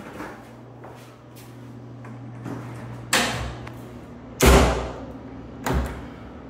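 A restroom door being pushed shut: a knock, then the door closing against its frame with a heavy thud about a second and a half later, and a shorter knock about a second after that. A steady low hum runs underneath.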